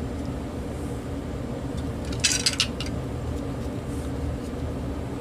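A quick cluster of sharp plastic clicks and rattles, about two seconds in, from the opened cordless phone handset being handled for a button test. A steady low hum runs underneath.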